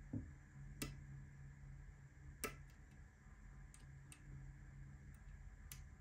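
Faint, scattered metallic clicks of a lock pick and tension tool working the pins of a lock cylinder, the two clearest about a second and two and a half seconds in, with a soft thump at the very start over a low steady hum.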